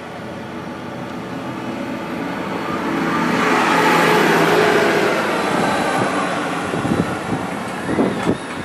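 Aircraft flying over, growing louder to a peak about four seconds in and then fading away.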